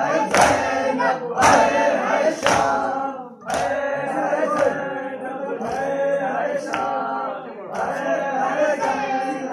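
A group of men chanting a Shia noha lament in unison, with the slap of hands beating on chests (matam) keeping time about once a second. The beats are strongest in the first few seconds and grow fainter after that.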